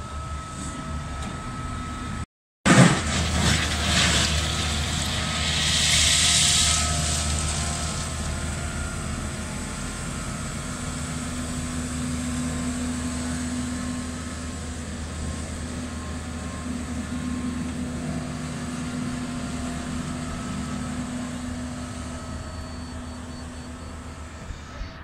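Diesel excavators and site machinery running with a steady engine drone. A loud clatter comes about three seconds in, and a hiss about six seconds in.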